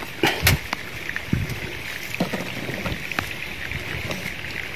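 Handling noise from a plastic-mesh fish trap being picked up and moved in wet grass. There are two sharp knocks about half a second in, then scattered clicks and rustling over a steady high hiss.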